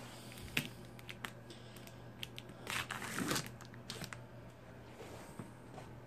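Knife slitting and tearing packing tape along a cardboard box: scattered clicks and scrapes, with a longer tearing rasp about three seconds in.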